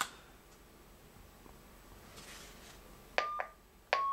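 Keypad beeps of a Luiton LT-898UV mobile radio: two short, high beeps, each with a click, about three-quarters of a second apart near the end, as its front-panel buttons are pressed. Before them, only faint room tone.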